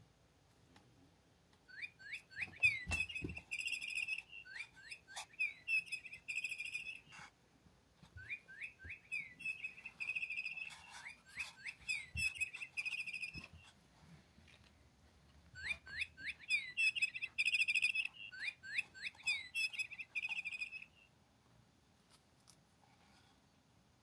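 Electronic chirping bird toy playing its recorded birdsong three times, each run about five seconds of quick rising chirps and trills, the same call each time. A couple of soft knocks come near the start of the first run.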